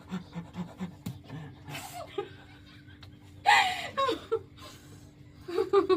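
Human breathy voice sounds, panting and laughing, with a louder gasping, laughing burst about three and a half seconds in.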